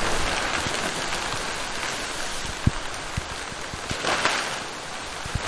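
Rain falling steadily, an even hiss with scattered heavier drops tapping, and a brief louder swell of hiss about four seconds in.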